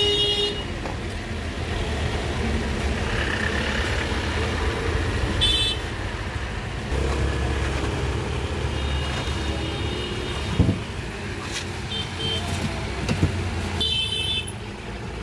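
Steady street traffic noise with several short vehicle horn toots, and a single sharp knock about two-thirds of the way through.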